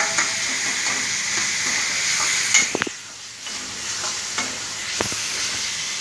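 Chopped tomatoes sizzling in hot oil and ghee in a steel kadai over a high flame, being stirred so that they soften. A steel ladle scrapes and clinks against the pan a few times, loudest about halfway through, and the sizzle eases a little after that.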